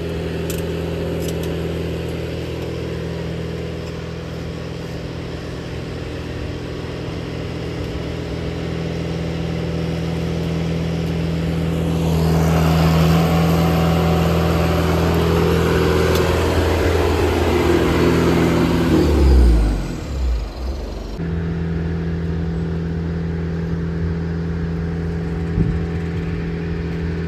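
Engine of the vehicle hauling the second section of a double-wide mobile home, running steadily. It gets louder about halfway through, its pitch drops sharply about two-thirds of the way in, then it settles back to a steady run.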